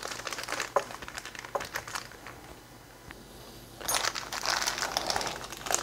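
Small clear plastic zip-lock bag crinkling as it is handled, in two spells: one in the first couple of seconds and a louder, busier one near the end, with a quieter pause between.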